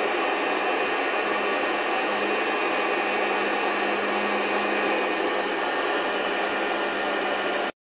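FreshRoast SR700 hot-air coffee roaster running with its fan blowing and the beans churning in the chamber, a steady whoosh with a faint hum, early in the roast on low heat before first crack. The sound cuts off suddenly near the end.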